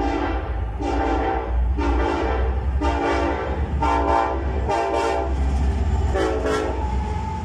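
Diesel locomotive air horn sounding a string of short blasts, about one a second, over a low engine rumble, ending in a thinner held tone.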